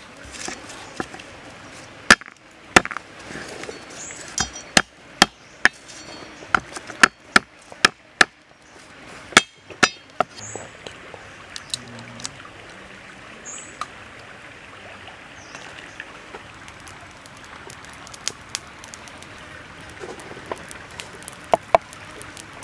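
A cleaver striking garlic cloves on a wooden chopping board: a run of sharp, unevenly spaced knocks over the first ten seconds or so, then a few lighter knocks near the end. A stream runs steadily in the background.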